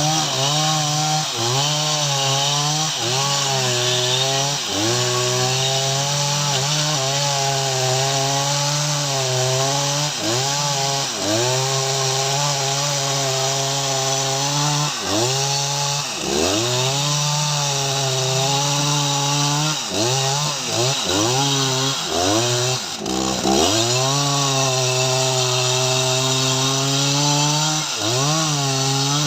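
Jonsered 2095 Turbo, a large 93.6 cc two-stroke chainsaw, running at full throttle while cutting teak wood. The engine note sags repeatedly as the chain loads up in the cut and recovers. Twice, about halfway through and again about three-quarters of the way in, it drops sharply, as when the throttle is let off, then revs straight back up.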